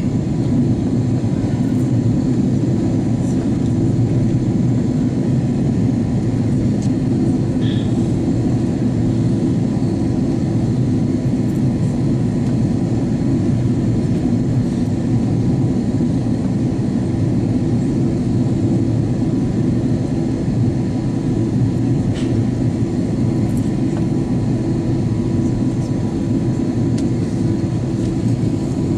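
Steady cabin noise of an Airbus A330-200 airliner in descent for landing: an even low rumble of jet engines and rushing airflow, heard from inside the cabin.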